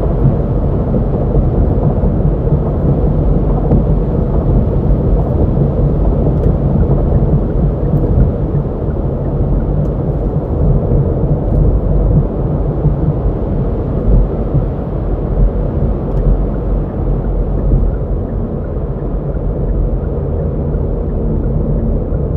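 Hyundai Veloster N's 2.0-litre turbocharged four-cylinder engine and exhaust heard from inside the cabin while cruising steadily in Normal drive mode: a steady low drone mixed with road noise.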